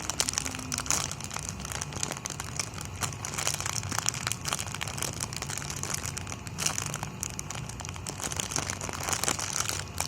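Crinkling and small crackles as a strawberry squishy toy is handled and squeezed.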